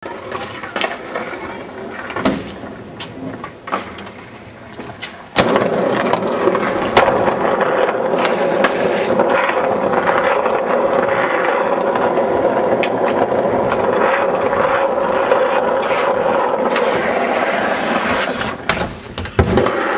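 Skateboard wheels rolling on rough asphalt: a few scattered clacks at first, then from about five seconds in a loud, steady rolling rumble. Near the end the rumble drops away and a few sharp knocks of the board follow.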